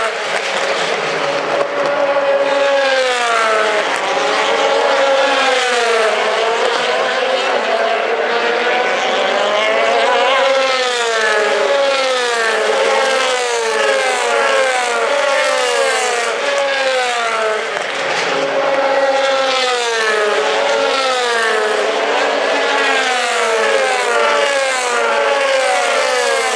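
DTM race cars' 4.0-litre V8 engines at racing speed. Their pitch climbs through the gears and drops again and again as the cars accelerate and brake.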